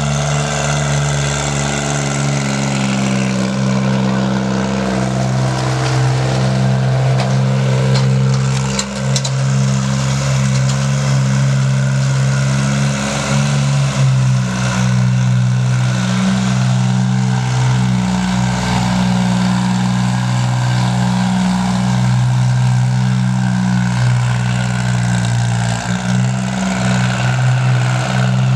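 Sonalika DI 22 compact diesel tractor engine running steadily under load as it pulls a 7×7 disc harrow through the soil, its pitch shifting slightly now and then.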